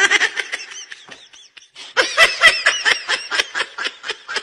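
A baby laughing in two bouts of quick, high-pitched giggles. The first fades out about a second in, and the second starts about two seconds in.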